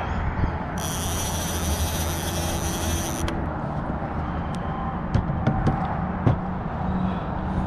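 Steady low rumble of traffic on the road bridge overhead, with a bright high hiss lasting about two seconds near the start and a few sharp clicks later on.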